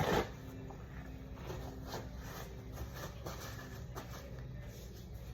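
Faint handling noises of slime-making: a knock right at the start, then small scattered clicks and rustles as the slime and its containers are worked by hand, over a low steady hum.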